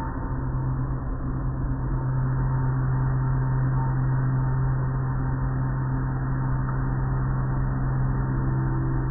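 Automatic car wash running, heard from inside the car: a steady machinery hum with a wash of water noise as the cloth curtain strips swing and spray over the car.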